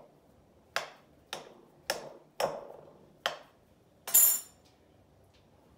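A metal fork knocking against the bottom of a baking dish five times as it pokes down through layers of crepe pasta, each a sharp knock with a short ring. About four seconds in, a louder, longer clatter of metal on a dish as the fork is set down.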